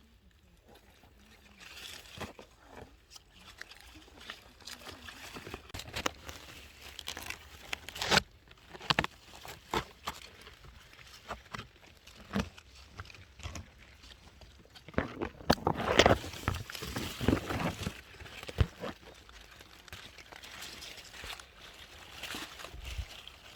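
Rustling and crunching of leaves and stems being handled, with irregular clicks and snaps, busiest a little past the middle.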